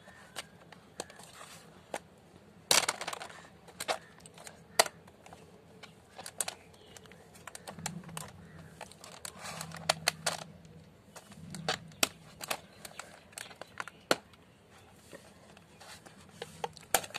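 Scissors snipping through rubber bands on plastic fish-transport bags, with the plastic bags crinkling. Sharp, irregular clicks and snaps throughout.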